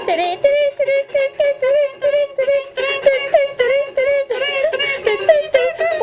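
A high-pitched voice singing a quick run of short, clipped syllables, about five or six a second, mostly on one note with small upward flicks.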